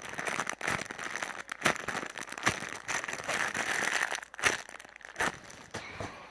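Crinkling and rustling with many sharp little crackles, as squishy toys and their plastic packaging are handled; it dies away near the end.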